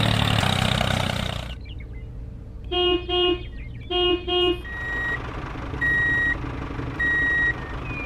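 Truck sound effects. An engine runs loudly and cuts back about a second and a half in. It is followed by two double horn toots, then three reversing beeps about a second apart, over a low engine idle.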